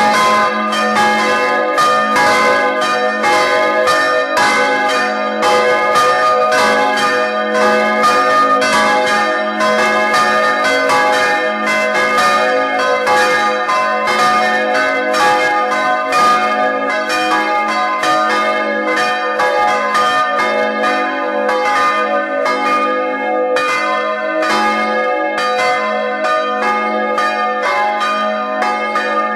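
Three bronze church bells swinging in the tower, their clappers striking in quick, overlapping strokes that ring together, with the low hum of the largest bell sounding underneath throughout.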